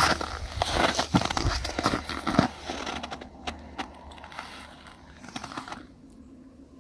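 Crunching and rustling of winter clothing and snow, with a run of sharp crackles in the first three seconds, then quieter, with only faint scattered ticks.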